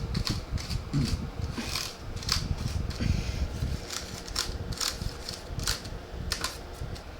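Irregular plastic clicks and clacks from a mechanical keyboard being handled during cleaning, over a steady low rushing noise.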